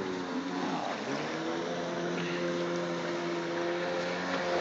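A boat engine running at a steady pitch, dipping briefly and coming back up about a second in.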